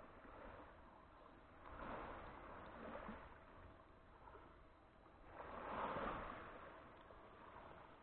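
Faint sea waves washing onto the beach: the rush of surf swells and fades twice, the second swell louder, toward the end.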